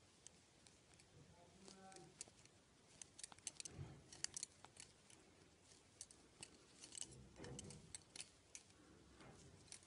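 Faint, irregular clicking of five double-pointed knitting needles tapping against each other while knitting, in quick clusters, with soft rubbing of hands and yarn.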